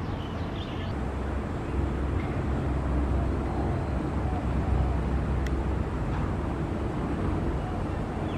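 Low, steady rumble of motor-vehicle traffic, swelling louder from about a second in and easing off after about six seconds.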